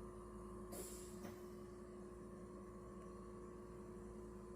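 Compressor nebulizer running with a steady low electrical hum. About a second in there is a brief soft hiss.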